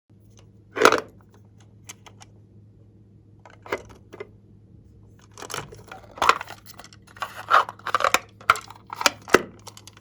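Slime and plastic piping bags being handled by hand: irregular short crinkles, snips and sticky squishes, one sharp one about a second in, then a denser run in the second half, over a faint steady hum.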